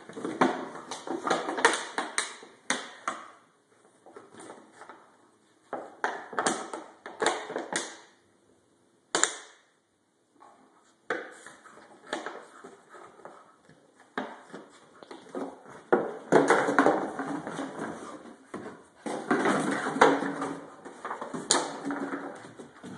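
Rottweiler puppy chewing and mouthing an empty plastic bottle: bursts of crinkling, crackling plastic, broken by a pause of about two seconds near the middle.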